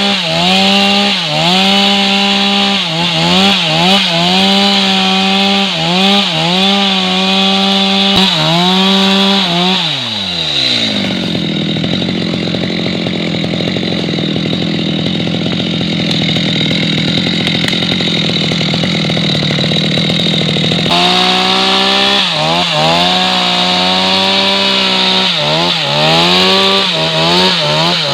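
Stihl MS 250 two-stroke chainsaw running at high revs, its pitch dipping and recovering again and again as the chain bites into wood. About ten seconds in, the engine drops to idle for roughly ten seconds. It then revs back up and resumes cutting with the same dips in pitch.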